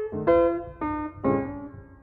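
Background keyboard music: a piano-like melody of notes and chords struck a few times a second, each ringing and fading away.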